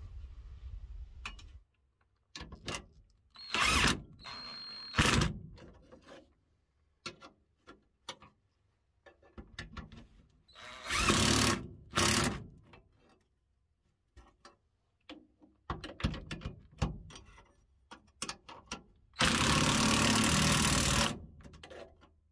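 Cordless impact wrench run in several short bursts on the bolts of a truck driveshaft's carrier bearing mount, the longest about two seconds near the end. Metal clinks of hand tools and sockets come between the bursts.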